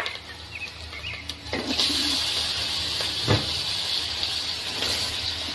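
Marinated beef tipped into a pot of hot oil and fried spices, starting to sizzle about a second and a half in and sizzling steadily while it is stirred, with one sharp clank a couple of seconds later.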